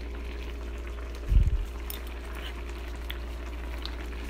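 Spicy seafood noodle broth simmering in a pan, with faint scattered bubble pops over a steady low hum. A dull low thump about a second and a half in is the loudest sound.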